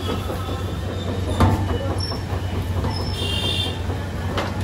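Busy street and stall noise: a steady low hum under a dense clatter. Two sharp knocks stand out, about one and a half and four and a half seconds in, and a brief high-pitched tone sounds a little past the middle.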